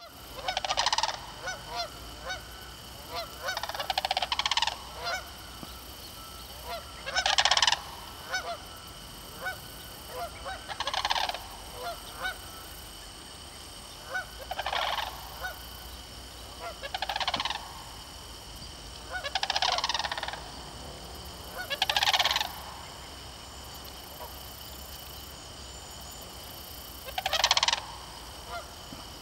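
A flock of sandhill cranes giving their rattling, trumpeting calls: loud bouts about a second long, repeated every few seconds.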